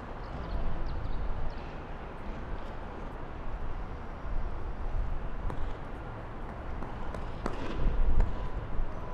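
Outdoor city street ambience: a steady noisy background with a low rumble that swells near the end, and one sharp click about seven and a half seconds in.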